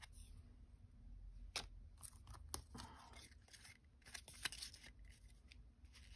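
Faint, scattered clicks and soft rustles of die-cut cardstock ephemera pieces being handled and shuffled.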